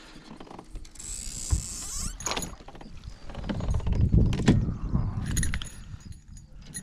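A hooked bass splashing briefly at the surface as it is grabbed by the lip and lifted out of the water into a kayak, followed by a few sharp clicks and knocks and heavy rumbling handling noise as the hook is worked out of its mouth.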